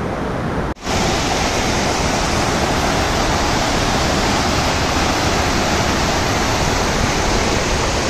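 Steady rush of flowing water from a stream running over rocks. It breaks off for an instant just under a second in, then runs on unchanged.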